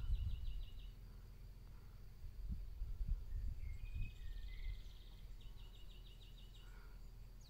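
Outdoor ambience: three short runs of fast, high-pitched chirps, near the start, about four seconds in and about six seconds in, with a faint sliding call among them, over an uneven low rumble.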